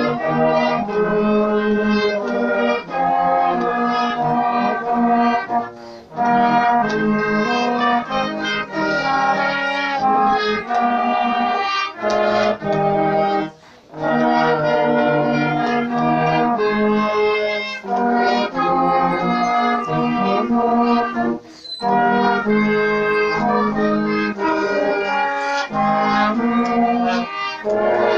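Trumpet choir, a brass ensemble, playing a tune in sustained chords, with short breaks between phrases about six, thirteen, twenty-one and twenty-five seconds in.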